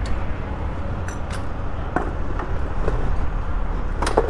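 Low, steady rumble of street and vehicle noise, with a few light knocks and a sharper clink just after four seconds in.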